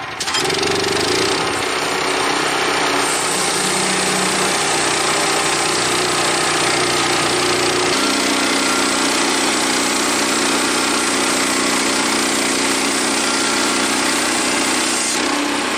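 Portable band sawmill running under load, its gas engine working steadily as the blade cuts a board off an old eastern white pine timber. The cutting hiss eases near the end.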